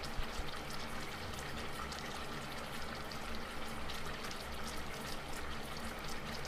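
Ginataang kamias (pork and kamias in coconut milk) simmering in a pan: a steady bubbling sizzle full of fine crackles as the sauce reduces.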